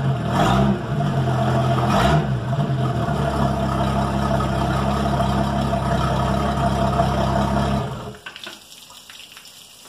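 4.3L Mercruiser V6 sterndrive engine running steadily, with two brief revs near the start, then shut off about eight seconds in. After it stops, faint splashing and trickling of water remains.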